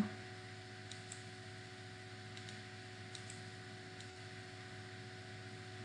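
About half a dozen faint computer mouse clicks, scattered through the first two-thirds, over a steady low electrical hum.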